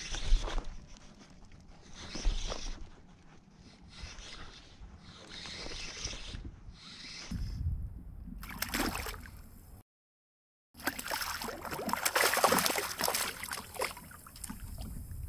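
Water sloshing and lapping against a kayak's hull in swells every couple of seconds. After a brief drop-out, a louder stretch of splashing follows.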